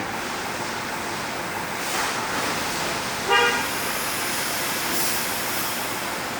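Steady vehicle running noise with one short horn toot a little over three seconds in.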